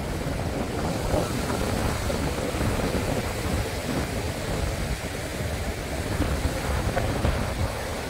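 Wind gusting on the microphone over a steady wash of sea surf.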